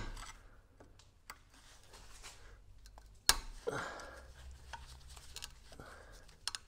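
Hammer striking a large flat screwdriver set into the rusted ABS sensor bore of a wheel hub, trying to drive out the seized remains of a broken ABS wheel-speed sensor. There are two sharp metallic strikes about three seconds apart, with a few lighter taps between them and near the end.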